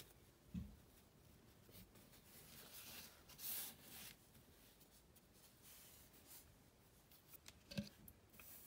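Near silence with faint handling noises: a soft knock about half a second in, a brief rub or rustle a few seconds in, and small clicks near the end.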